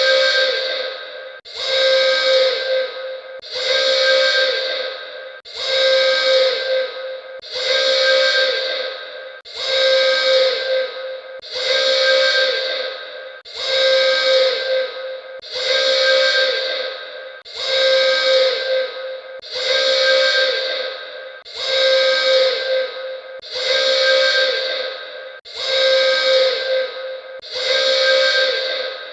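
Alarm sound effect: a steady, whistle-like alarm tone with a hiss to it, sounding in blasts of nearly two seconds that repeat about every two seconds with a short break between.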